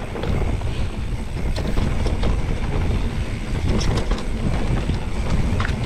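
Mountain bike descending a dirt singletrack: tyres rolling over loose dirt and the bike's frame and drivetrain rattling, with many scattered clicks and knocks over a steady low rumble of wind and vibration on the camera.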